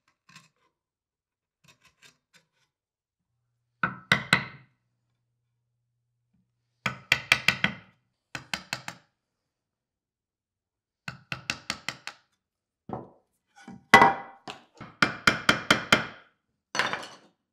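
Bench chisel struck with a mallet, chopping out the waste along the baseline between dovetail tails in mahogany. Volleys of quick, sharp wooden knocks, a few strikes at a time, with pauses of a second or more between volleys.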